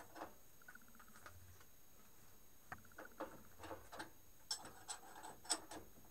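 Light metallic clicks and ticks from a wrench tightening the drawbar that holds the end mill in a benchtop milling machine's spindle, with two short runs of rapid clicking and a sharper click near the end.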